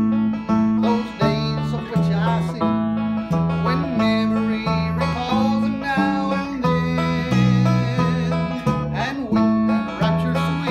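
Instrumental country-gospel string-band music on plucked acoustic strings, with a steady alternating bass note pattern under the melody and a few sliding notes.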